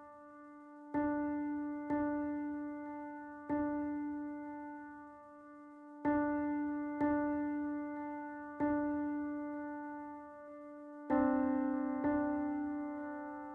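Background piano music: the same note struck every one to two seconds, each ringing out and fading away. A fuller chord comes about eleven seconds in.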